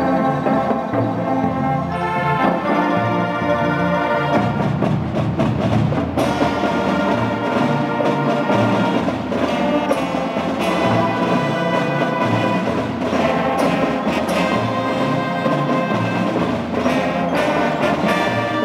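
Children's brass marching band playing: trumpets, trombones and euphoniums sounding chords together over drums and percussion.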